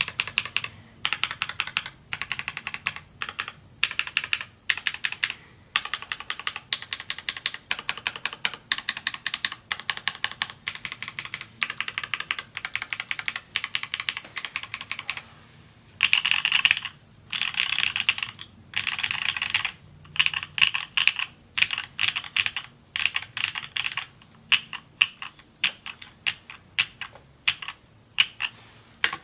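Typing on an S&R Magnus175 mechanical keyboard: rapid runs of keystroke clicks with brief pauses between words.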